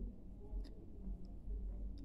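Close-miked mouth sounds of a person chewing a mouthful of clay: a few sharp, wet clicks and smacks, one about two-thirds of a second in and another near the end, over a low rumble.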